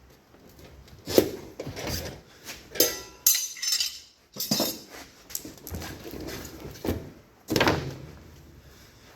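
Steel tire irons clinking and knocking against a dirt bike wheel rim as the tire is levered off, in a series of irregular metallic knocks and clinks, the loudest about a second in.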